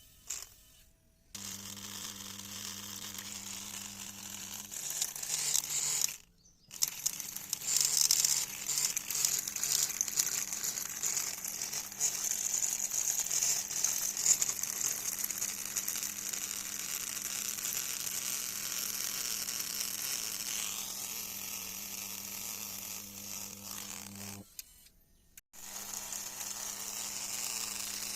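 Small electric motor of a homemade model borewell drilling machine running with a steady buzzing hum, over a rough, uneven grinding noise. The sound drops out briefly three times.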